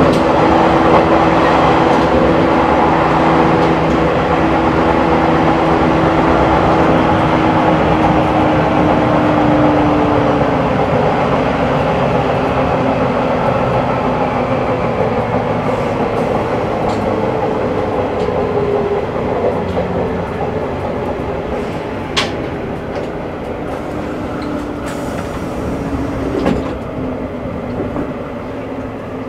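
JR 185 series electric train running, heard from the vestibule of its motor car MoHa 184: steady rumble and rail noise with a low whine that sinks slowly in pitch over the first ten seconds. The running grows gradually quieter, with a sharp click about 22 seconds in.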